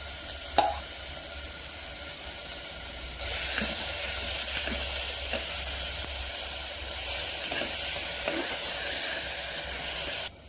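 A ground chicken, onion, garlic and ginger paste sizzling in hot oil in a pressure cooker as it is stirred, with now and then a light click of the spoon against the pot. The sizzle gets louder a little after three seconds in and cuts off suddenly near the end.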